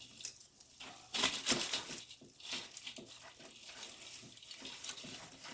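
Rustling and crackling of artificial Christmas greenery picks being handled and pushed into a hearth arrangement, loudest a little after a second in.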